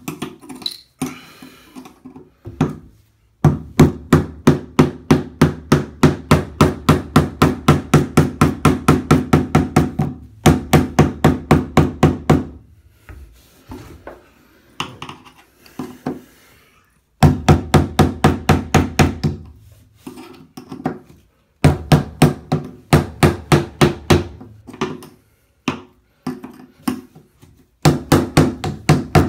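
Hammer striking the handle of a screwdriver braced against the edge of a corroded bathtub drain flange, knocking the drain round to loosen it because its centre is too corroded to grip. The taps come in quick runs of about four a second, with short pauses between runs.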